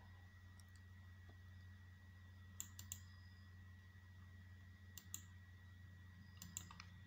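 Near silence with a low steady hum, broken three times by pairs of faint computer mouse clicks.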